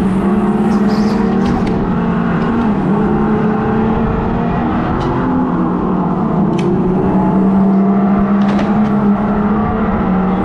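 Go-kart at speed with the engine sound piped through a speaker behind the seat, its pitch following the throttle and dipping slightly now and then, plus a few short knocks.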